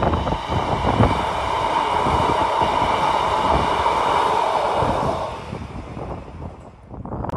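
A train running past close by, with a steady tone over the noise that fades about five seconds in, and wind buffeting the microphone.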